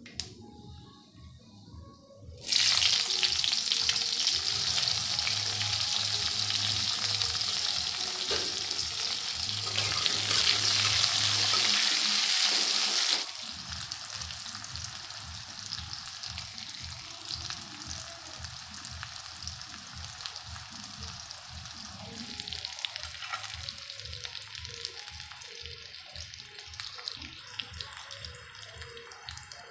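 Sliced onions and green chillies frying in hot oil in an iron kadhai: a loud sizzle starts suddenly about two seconds in, then drops to a quieter sizzle about halfway through while a metal spatula stirs them.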